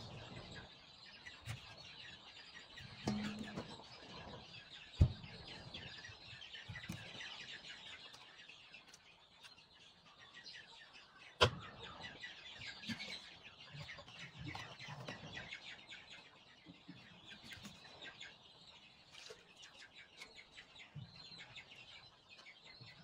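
A knife blade knocks on a wooden chopping board as a spiny eel is cut into chunks. A few sharp knocks stand out, loudest about 5 and 11 seconds in. Steady high chirping of birds runs underneath.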